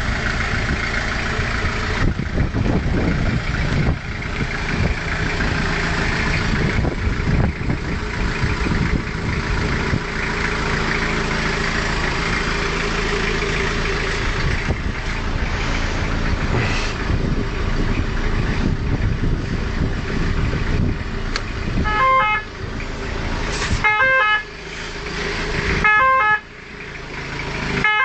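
Steady motor vehicle and road noise. About three-quarters of the way through, an ambulance's French two-tone (deux-tons) siren starts, its alternating notes repeating in a cycle about every two seconds.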